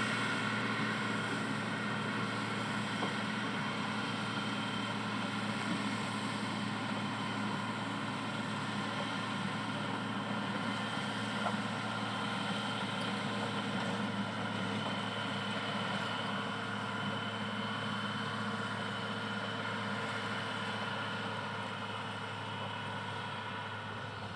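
Komatsu GD511A motor grader's diesel engine running steadily with a low, even drone, growing slightly fainter in the last few seconds.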